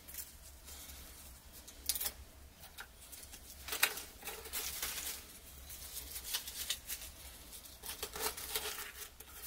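Dry birch bark and crushed pine kindling (Kienspan) handled and packed by hand into a hollow log: intermittent rustling and crackling with a few sharp clicks.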